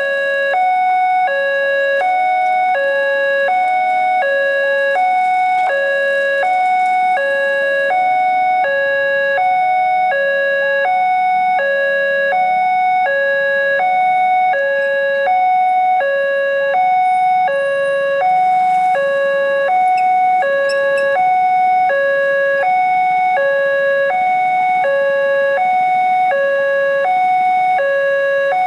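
Electronic warning alarm of a railway level crossing sounding from the loudspeaker on the signal post. A lower and a higher tone alternate steadily, about one pair a second. It signals that the barrier is down for an approaching train.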